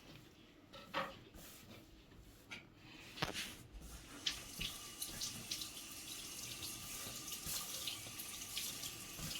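Water running from a tap into a sink, starting about three to four seconds in as a steady hiss, with a few short clicks and knocks before it.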